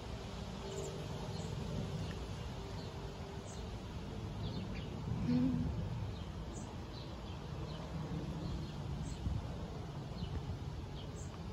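Outdoor backyard ambience: faint, short bird chirps scattered throughout over a steady low rumble, with one brief louder low sound about halfway through.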